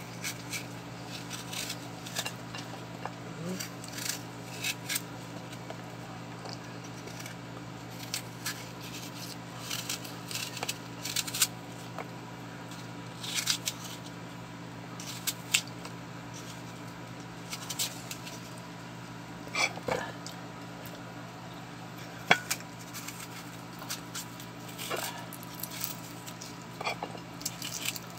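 Scattered small clicks and crackles of hands peeling food close to the microphone, including a quail egg's shell near the end, over a steady low hum.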